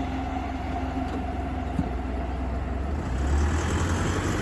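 A train passing close by, its low rumble and rushing noise growing louder about three seconds in. A steady tone under it fades out before halfway.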